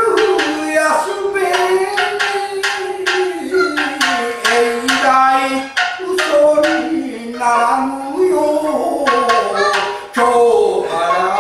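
A rōkyoku narrator singing a drawn-out melodic passage in a wavering voice, sliding between held notes and gliding down near the end, accompanied by sharp shamisen plucks.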